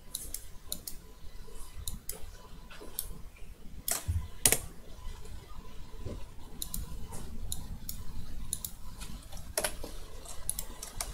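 Irregular computer keyboard and mouse clicks, with a few sharper clicks about four, four and a half and nine and a half seconds in.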